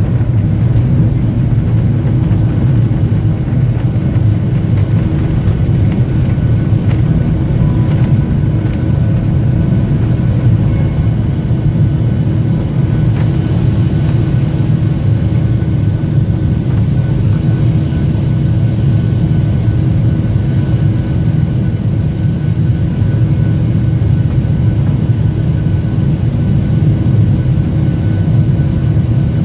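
Boeing 737-800 jet engines running at high power during takeoff: a loud, steady rumble with faint steady whining tones above it.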